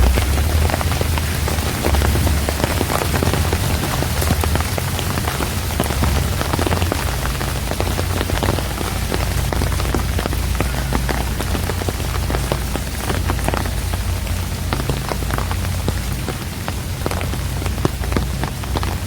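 Steady rain falling, with many separate drops hitting close by over an even hiss, and a low rumble underneath.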